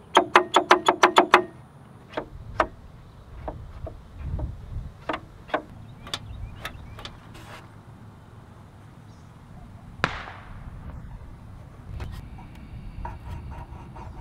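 Plastic clicks from a Vespa LX glovebox latch and lock mechanism worked by hand: a quick run of about eight sharp clicks at the start, then scattered single clicks and a sharper snap about ten seconds in.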